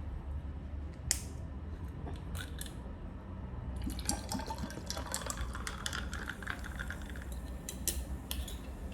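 Orange drink being poured over ice, a splashing pour for a few seconds in the middle, with sharp clicks before and after.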